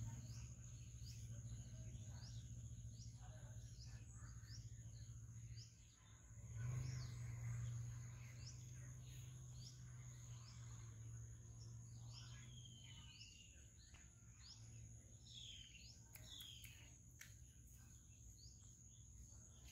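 Faint rural ambience: birds chirping, short rising calls every second or so with a few longer gliding calls later on, over a steady high insect drone. A low hum underneath stops about two-thirds of the way through.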